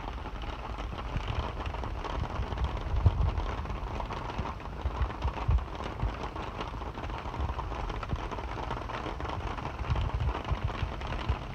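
Steady rain falling on a garden and yard, an even patter, with occasional low thumps.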